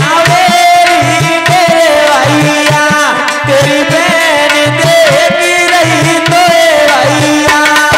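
A man singing a Hindi folk wedding (bhat) song into a microphone over a steady hand-drum rhythm, his voice wavering and sliding on the held notes.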